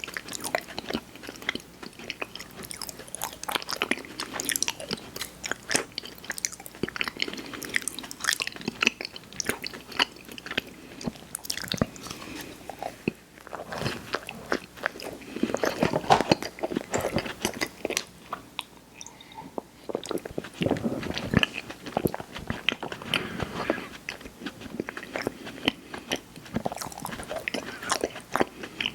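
Close-miked eating: a person biting and chewing sweet snack cakes with steady wet, crackling mouth sounds, pausing briefly twice along the way.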